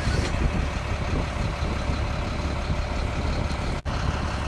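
Tour bus running along the park road, heard from inside the cabin: a steady low engine and road rumble, with a momentary dropout a little before the end.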